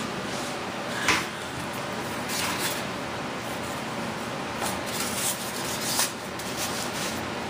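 Light taps and rubbing as thin wood sheets, strips and a foam block are handled and laid against each other on a workbench. The sharpest tap comes about a second in and another about six seconds in, over a steady background hiss.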